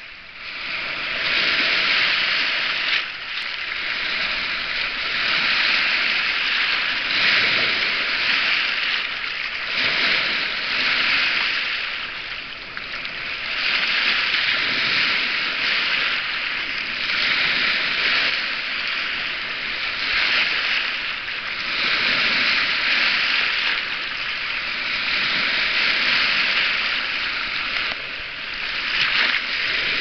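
Small lake waves washing in over a pebble shore around a large rock and drawing back, the wash swelling and easing every few seconds.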